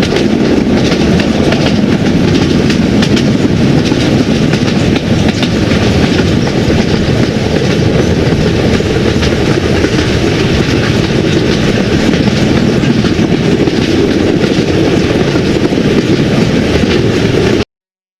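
Train running along the track: steady, loud noise of wheels on rails, cutting off abruptly near the end.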